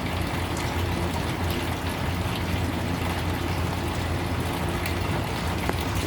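A steady low mechanical hum, like a motor or engine running at idle, holds an even level throughout, with a few faint short high ticks over it.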